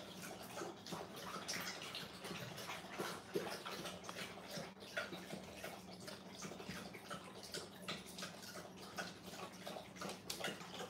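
Dogs lapping water from stainless steel bowls: a quick, irregular run of wet laps and small splashes.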